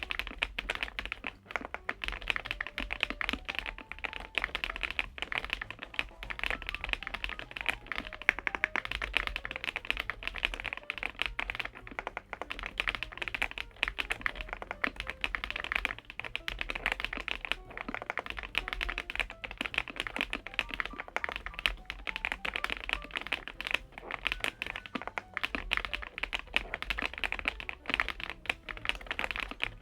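Continuous fast typing on a Kzzi K98 mechanical keyboard, a leaf-spring-mount board with PBT keycaps: a steady stream of keystroke clacks with no pauses.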